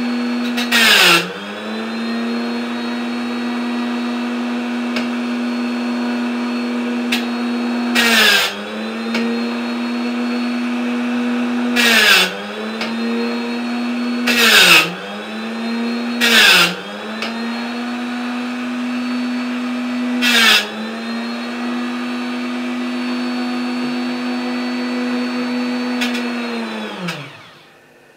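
Dremel rotary tool with a small diamond grinding disc running at a steady high whine. Six times the disc bites into a band saw blade's teeth with a brief harsh grinding hiss, and each time the motor's pitch dips under the load. Near the end the tool is switched off and its pitch falls as it spins down.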